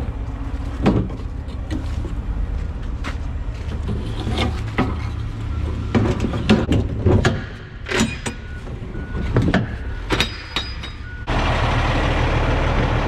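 Metal clanks and knocks from a semi-trailer's aluminium swing doors and lock-rod latches being handled, over the steady low rumble of the idling diesel truck. Near the end it changes suddenly to a louder steady rushing noise.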